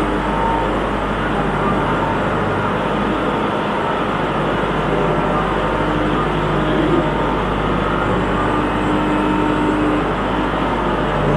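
Kubota MX5400 tractor's diesel engine running steadily while it grades a dirt floor with a rear blade.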